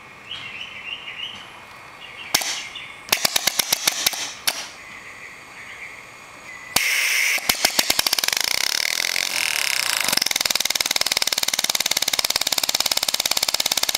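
A few clicks and a quick run of taps, then about seven seconds in a sudden rush of air as the compressed air comes on, and the single-cylinder piston-valve compressed-air model engine runs up to speed. Its exhaust puffs in a fast, even beat.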